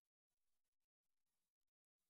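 Near silence: a soundless film with no audio track, only faint flickers of digital noise.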